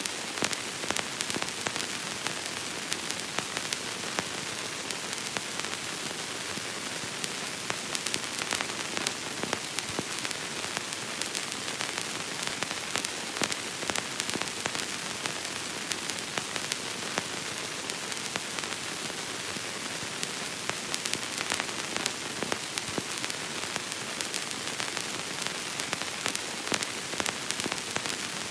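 Old film crackle: a steady hiss with dense, random pops and clicks, like the surface noise of a worn recording.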